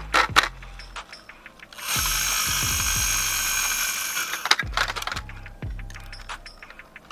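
Small toy mechanism clicking and ratcheting, with a steady high whirring rattle lasting about two and a half seconds before the clicks return.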